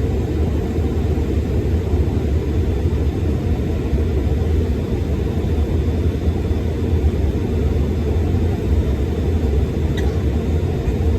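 Steady low rumble of a Bombardier CRJ900 regional jet's engines and airflow in flight after takeoff, heard from inside the cabin.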